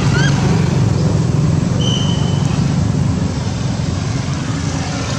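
Steady low rumble of road traffic. A short rising squeak comes just after the start, and a brief high whistle about two seconds in.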